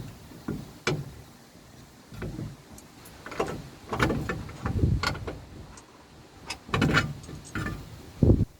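A series of irregular knocks, clunks and short rattles as tools and parts are handled and set down, about a dozen in all. A heavier low thump comes near the end.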